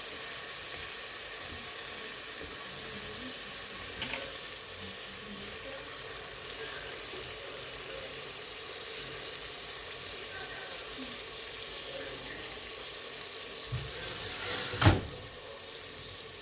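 Chopped tomatoes and chilli masala sizzling in hot oil in a pressure cooker pot, a steady hiss. There is a light click about four seconds in and a sharp knock near the end.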